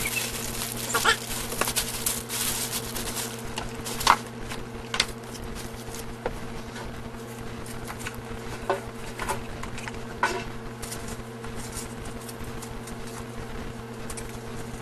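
Crinkling and rustling of crinkly red gift wrap and light knocks of a cardboard box being handled, the crinkles dense in the first few seconds and sparser after. A steady low hum runs underneath.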